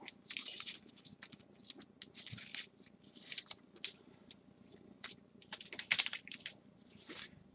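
Faint, irregular rustling and crinkling with small taps, the loudest burst about six seconds in: gloved hands handling trading cards and the plastic holders they go into.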